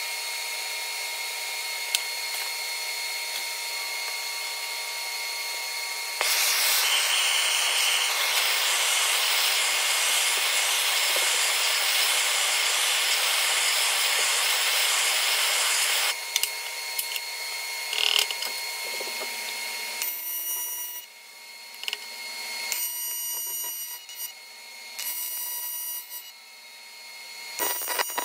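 Handheld gas torch hissing steadily as it preheats an aluminum turbo compressor housing, louder from about six seconds in and stopping after about sixteen seconds. Then about four short bursts of AC TIG welding arc, each about a second long with a buzz, tacking the aluminum inducer ring into the housing.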